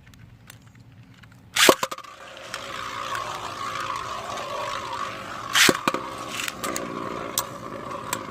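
Two 3D-printed Beyblade spinning tops launched into a plastic stadium with a sharp crack about a second and a half in. They then spin with a steady whirring scrape, with a loud clash about five and a half seconds in and a few lighter clicks.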